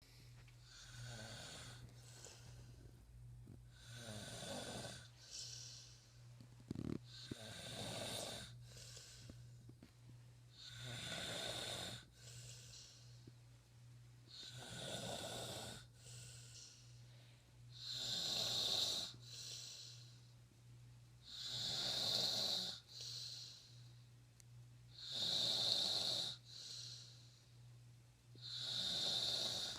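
A sleeping woman snoring: a rasping snore about every three and a half seconds, growing louder in the second half.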